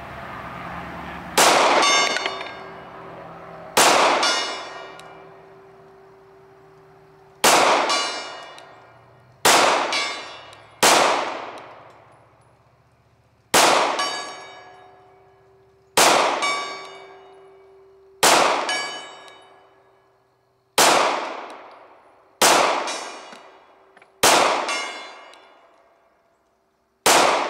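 About a dozen 9mm shots from a Glock 26 subcompact pistol, fired slowly, one every two seconds or so. Each bullet strikes a hanging round steel gong, which clangs and rings out, fading over a second or two.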